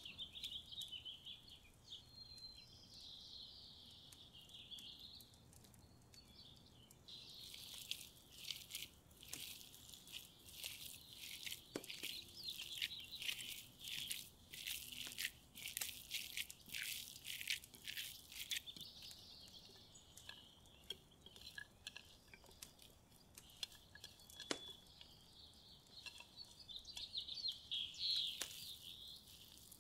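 Hands squeezing and kneading raw ground beef with spices in a bowl: wet squelching and squishing that comes in busy bursts, thickest in the middle stretch and again near the end as chopped vegetables are worked in. Birds chirp now and then.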